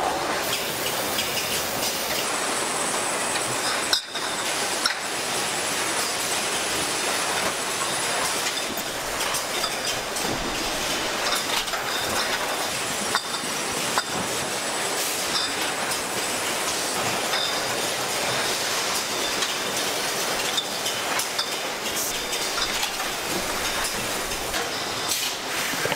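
Automated carton-packing line running: a steady mechanical clatter of conveyors and pneumatic machinery, with many small clicks and clinks.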